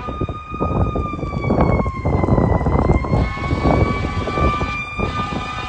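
Fire engine siren sounding one long wail that sags slowly in pitch and climbs back up, over the rumble of road traffic.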